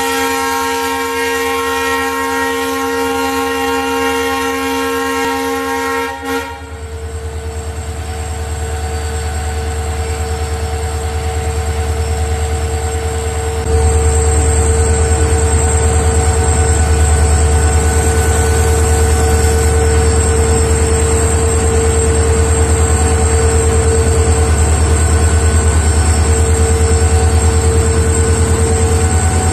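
WDP4 diesel locomotive sounding its horn, several steady tones held together for about six seconds, then its EMD 710 two-stroke V16 engine running with a steady hum. About fourteen seconds in the engine gets louder and a steady high whine comes in.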